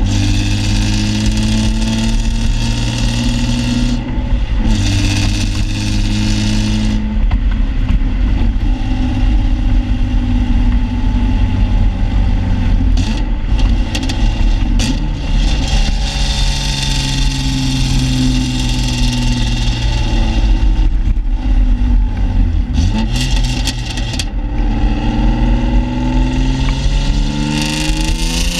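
Exhaust of a 1995 BMW E36 M3's straight-six running at low revs, heard right at the twin tailpipes, through a stock muffler with its packing removed and the catalytic converter and resonator deleted. The pitch shifts a little a few times, and near the end it starts to rise as the engine is revved.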